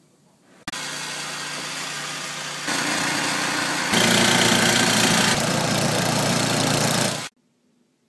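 Snowblower's gas engine running while the machine throws snow, with a strong hiss over the engine note. It gets louder in two steps and cuts off abruptly.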